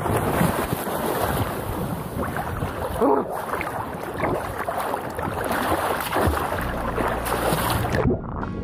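Sea water splashing and sloshing close to a camera held at the surface, with wind buffeting the microphone. About eight seconds in, the splashing hiss cuts off suddenly.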